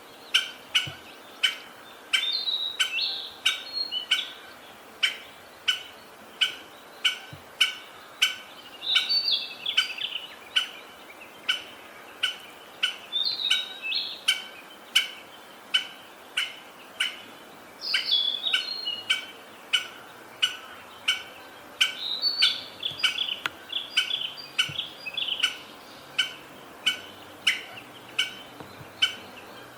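Wild birds singing in mountain woodland, with a short phrase every four or five seconds. A steady run of sharp ticks, about one and a half to two a second, is louder than the birds throughout.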